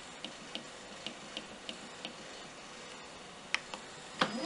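Faint, short ticks about three a second from the Moulinex Cuisine Companion's touch control panel as the + button steps the timer up for the whisking program. Near the end there is a louder click, then the machine's motor starts spinning up with a rising whine.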